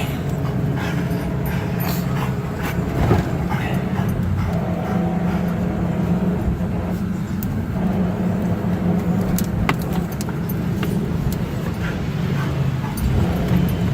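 Car engine and road noise as the vehicle keeps driving, heard from inside the cabin: a steady low drone with scattered sharp knocks and clicks.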